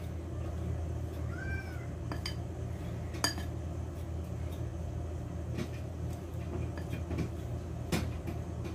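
Metal fork clinking a few times against a glass mixing bowl while dry flour and sugar are stirred, over a steady low hum. About a second and a half in, a cat meows once, briefly.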